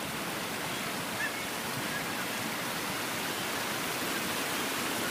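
Waterfall: white water rushing down a rocky cascade, a steady hiss of falling water.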